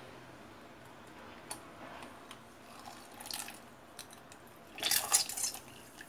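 Lemon juice dripping and splashing into a plastic bowl as a lemon is squeezed with a metal hand-held lemon squeezer. A short, louder noisy burst comes about five seconds in.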